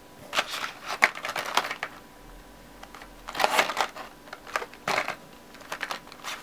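A plastic blister pack being handled, its stiff plastic crackling and clicking in several irregular spells, loudest about three and a half seconds in.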